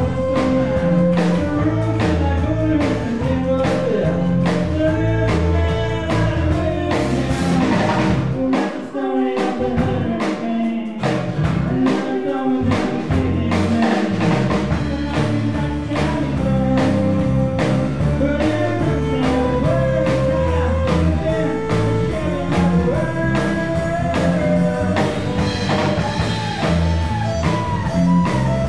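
Live folk band playing: violin, acoustic guitar, bass and drum kit with a steady beat. The bass and drums drop out briefly about nine seconds in and again around twelve seconds, then come back in.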